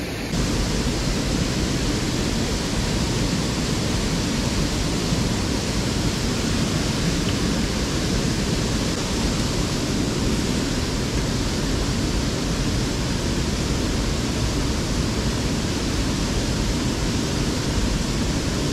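Steady, even rushing of flowing water on a small river.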